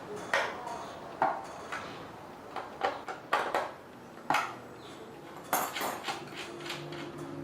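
Metal parts and tools clinking and knocking against each other while being handled, about ten sharp, irregular clinks, each with a short ring.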